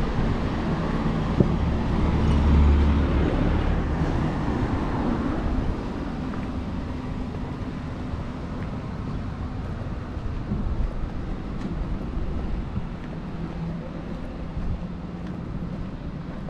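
Road traffic on the street alongside: a small truck drives past, swelling to its loudest two to four seconds in and fading by about six seconds, leaving a lower, steady road noise.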